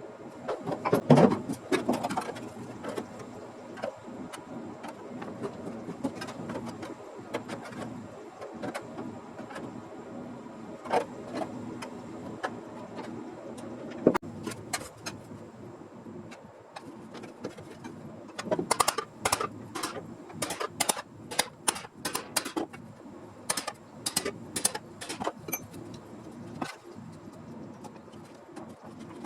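Irregular clicks and light metallic taps from hand work on a steel sheet-metal body panel, with a quick run of sharp taps about two-thirds of the way through.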